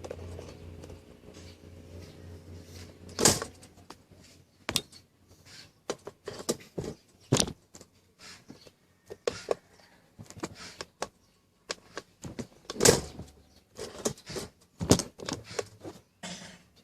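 A steady electrical hum stops about three seconds in. Irregular sharp clicks and knocks of hard objects being handled follow, the loudest two near the start and partway through.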